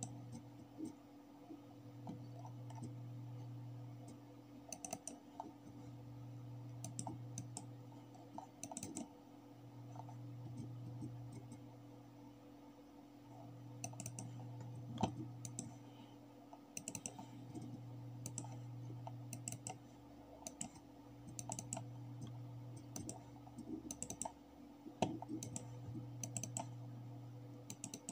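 Computer mouse clicking at irregular intervals as folders are opened, single clicks and quick pairs. Under the clicks runs a low hum that swells and fades about every four seconds.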